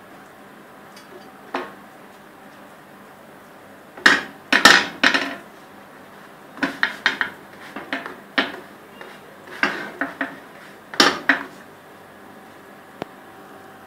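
A ridged stovetop grill pan and a plastic spatula clattering as bread slices are laid on the pan and handled: bunches of sharp knocks and short scrapes, starting about four seconds in and coming in several clusters, with a single click near the end.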